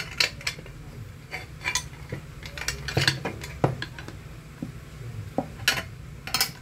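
Steel 12 mm open-end wrenches clinking against a nut and an aluminium pressure-cooker lid as the lid's handle nut is tightened: a run of irregular metallic clicks and clinks, a few louder ones about three seconds in and near the end.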